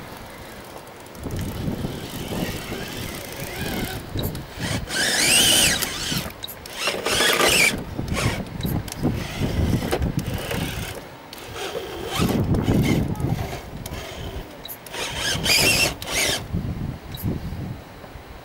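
Electric motor and drivetrain of a radio-controlled rock crawler whining in bursts as it is throttled on and off, the pitch rising and falling, with scattered knocks.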